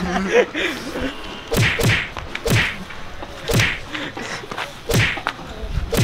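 Handheld camera knocked about while its holder walks: a string of irregular thumps and knocks, roughly one a second.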